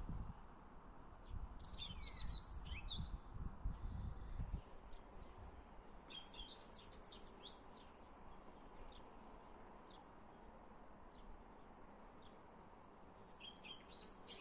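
Small songbird singing three short bursts of high chirps and trills, with longer pauses in between. A low rumble runs under the first song phrase and stops about four seconds in.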